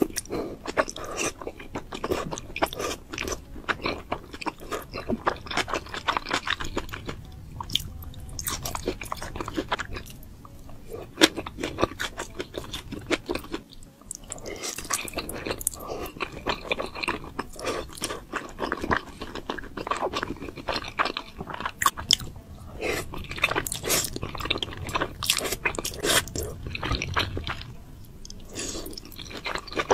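Close-miked eating sounds: dark-sauced noodles being slurped and chewed, with a dense run of small wet clicks and crunches throughout and a brief lull midway.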